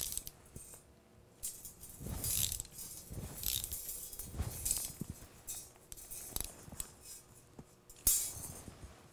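Brake line flaring tool being screwed down on a brake line held in its clamp bar: scattered metallic clinks and rattles from the tool and bar, with a sharp click about eight seconds in.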